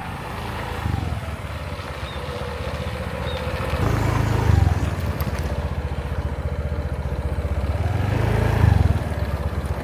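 Motorbike engine running as it is ridden, with the engine note swelling louder twice, about halfway through and near the end.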